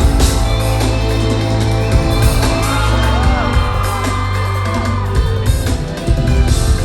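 Live pop band music with a heavy, steady bass, with audience members screaming and whooping over it around the middle.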